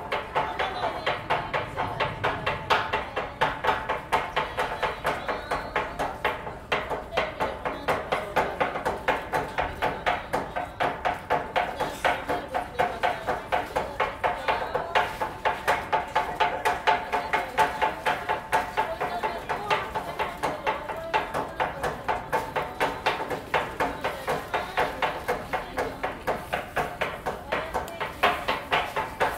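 Tontoko-ame candy cutting: kitchen knives chopping sticks of hard candy on a wooden board in a fast, even, drum-like rhythm of sharp knocks.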